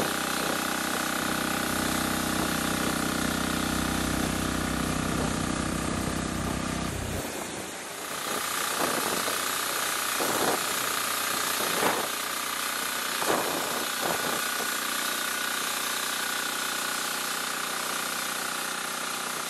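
Homemade bandsaw sawmill running on its diesel engine, with a steady engine hum and a high blade whine. About seven seconds in the low engine hum drops away abruptly, leaving a hissing rush with the same steady whine and a few short swells.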